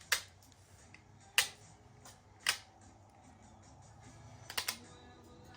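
Sharp clicks from hand tools at work on heavy battery cable: single clicks about a second apart early on, then a quick double click near the end, over quiet background music.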